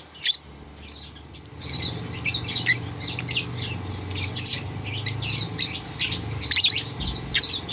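Lovebirds chattering: a rapid run of short, shrill chirps and squawks, several a second.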